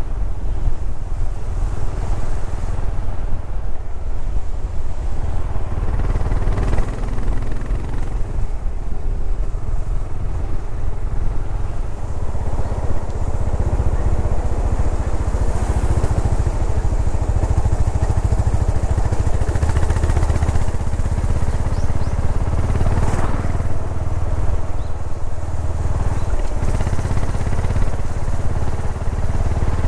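Yamaha SR400's air-cooled single-cylinder engine running while the motorcycle is ridden on the road, under steady wind and road noise.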